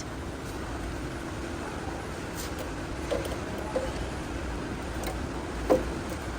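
Steady low machinery hum and room noise of a workshop, with a few faint short knocks while a T-shirt is fitted onto an embroidery machine's frame.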